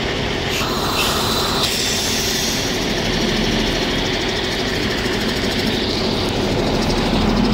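Bus engine idling, a steady unbroken running noise.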